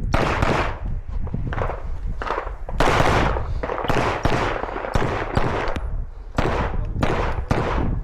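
Handgun shots fired in a fast string at uneven intervals, some close pairs and short pauses between, each with a ringing tail.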